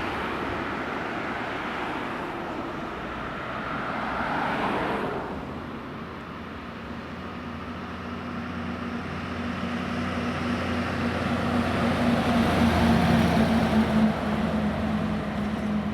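Road vehicles passing: a whoosh of traffic noise, then a steady engine hum that builds over several seconds and eases off near the end.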